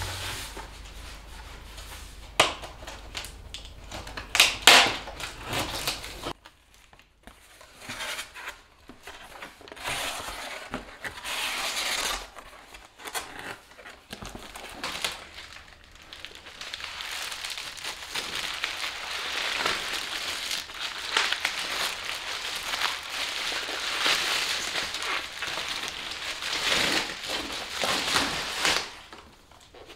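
Bubble wrap and packing material crinkling and rustling in a cardboard box as it is unpacked by hand. There are a few sharp noises in the first seconds, the loudest about four seconds in, and the crinkling grows steadier and denser in the second half.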